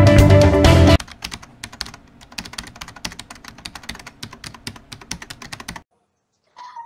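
Guitar-led music cuts off about a second in. It is followed by quiet, irregular clicking like typing on a computer keyboard, which stops shortly before the end.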